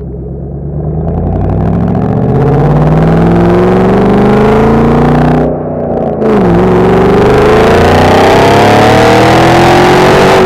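2014 Ford Shelby GT500's supercharged 5.8-litre V8 accelerating hard. Its loud exhaust note rises steadily in pitch through one gear, dips briefly at a gear change about five and a half seconds in, then climbs again through the next gear.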